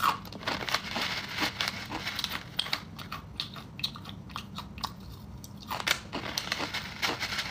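Crunchy food being chewed close to the microphone: a run of irregular, crisp crunches.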